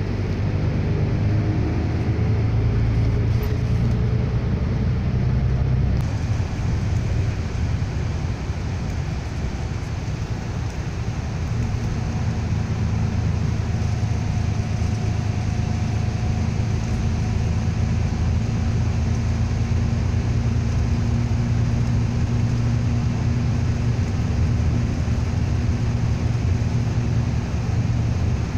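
Road vehicle driving at speed, heard from inside the cabin: steady engine drone and tyre-on-road rumble. The engine note changes about a fifth of the way in and again a little before halfway.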